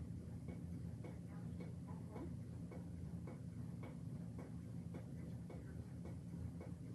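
Faint ticking clicks, roughly two a second and slightly uneven, over a steady low hum.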